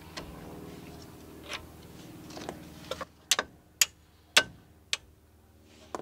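Mallet tapping a brake pad retaining pin into a disc brake caliper: about five sharp taps roughly half a second apart, starting about halfway through.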